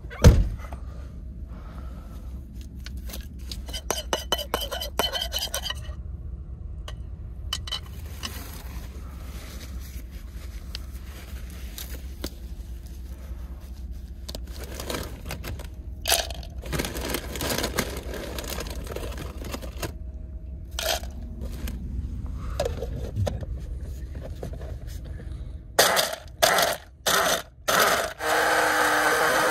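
Scrapes and clicks of food prep over a steady low hum, then a Hamilton Beach personal blender crushing hot Cheetos into crumbs: about four short pulses, then one continuous run near the end.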